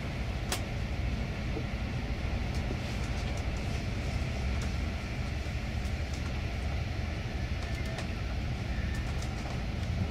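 Train running on rails: a steady low rumble of rolling wheels, with occasional sharp clicks.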